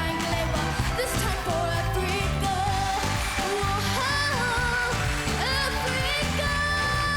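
A singer performing a pop song with a backing band, the voice bending between notes and holding one long note near the end over steady bass and drums.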